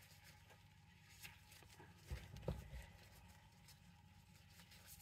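Near silence: room tone, with a few faint low knocks about two seconds in.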